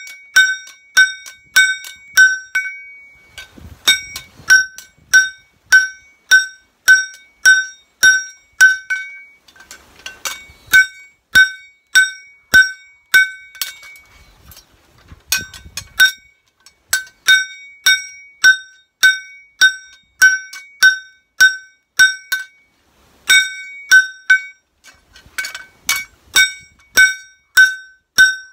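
Hand hammer striking a kitchen knife blade held in tongs on a steel anvil while the blade is forged. Steady ringing blows close to two a second, with a few short pauses between runs.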